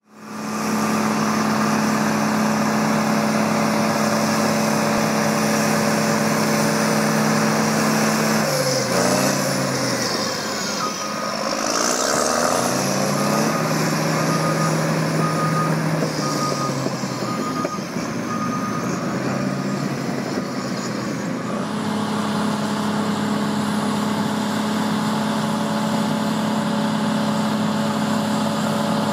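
Bulldozer's diesel engine running steadily. Partway through, its pitch drops low and climbs back as the revs change, and a backup alarm beeps at an even pace for about ten seconds.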